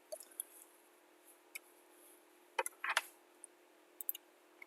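A few faint, sharp computer mouse clicks, spread over several seconds, over a low steady hum.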